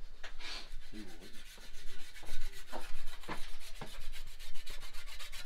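A scythe swung through tall grass and weeds, cutting with a series of sharp swishing strokes, several about half a second apart.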